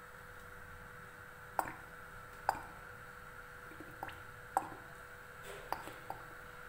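Cooking oil poured from a plastic bottle into a non-stick frying pan, glugging and dripping in a string of short plops. A faint steady hum runs underneath.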